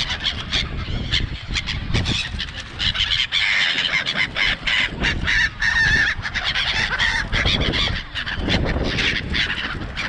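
A flock of black-headed gulls calling without pause, many harsh overlapping squawks, as they crowd in close for food offered by hand.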